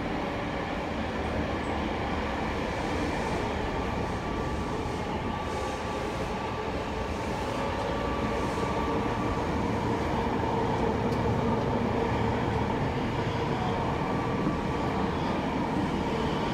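Running noise inside a Tokyo Metro Marunouchi Line subway car in motion: a steady rumble of wheels on the rails with a faint steady hum.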